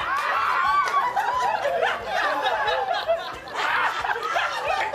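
Audience laughter: many voices laughing at once, with a short lull about three and a half seconds in.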